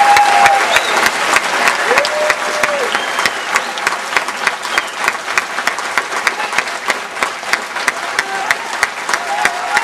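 Audience applauding, the clapping dense at first and thinning to more scattered claps in the second half.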